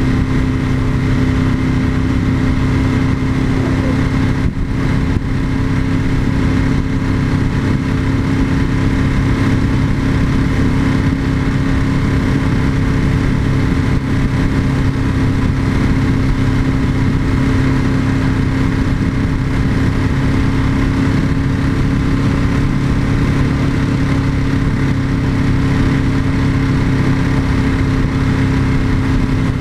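Ducati 996's 90-degree L-twin engine running at a steady, unchanging speed with a constant wind and road hiss, with a brief dip about four and a half seconds in.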